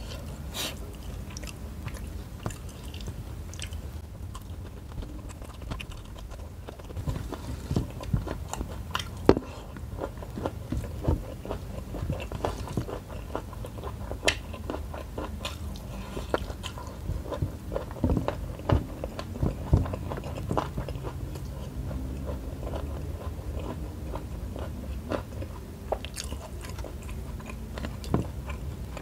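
A person chewing mouthfuls of rice with shrimp and petai chili sambal, close to the microphone, with many small irregular mouth clicks throughout.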